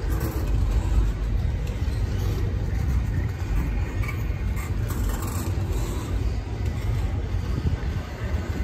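Steady low vehicle rumble, with a few brief high hissing streaks about four to five seconds in.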